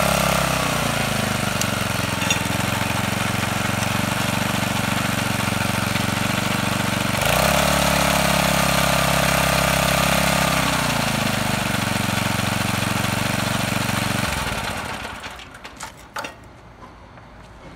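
Kubota TMA21 Midy mini tiller's 2.2 hp engine running at high revs with the tines spinning, dropping to idle about a second in, revving up again around the middle and dropping back to idle. It is shut off near the end, followed by a few light knocks.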